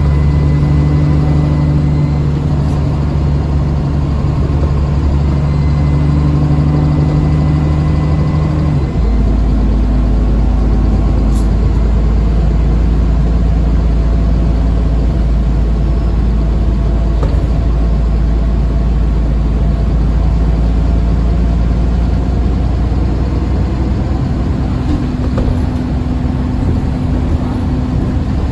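Alexander Dennis Enviro 400 Trident double-decker bus engine running on the move, a steady engine note with a faint high turbo whine. About nine seconds in the note changes to a deeper, heavier rumble that carries on steadily.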